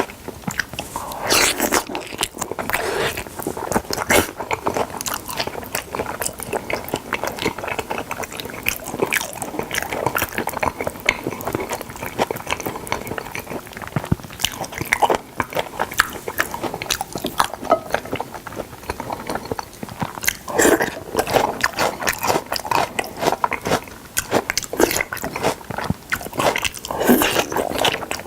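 Close-miked chewing and biting of salmon: irregular wet smacks and clicks of mouths working through mouthfuls, without a pause.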